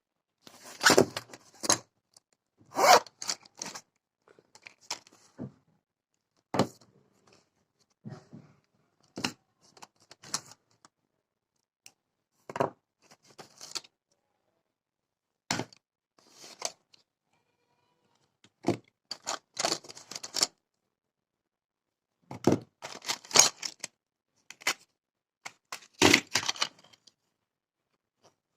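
Small items being taken out of a pouch and handled one by one: short rustles, scrapes and clicks, separated by brief silences.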